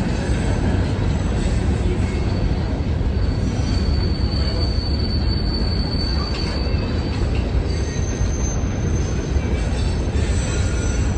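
A train rolling past with a steady heavy rumble, its wheels squealing in thin, high, steady tones that come and go, most clearly from about four to six seconds in and again near the end.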